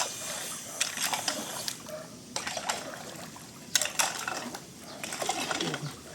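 Stones knocking and scraping together in shallow creek water as they are shifted, in about half a dozen irregular clattering bursts.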